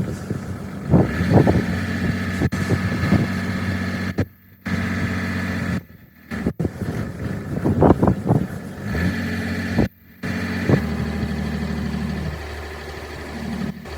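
An engine running steadily, with a series of sharp knocks over it in the first few seconds and again past the middle. The sound cuts off abruptly three times.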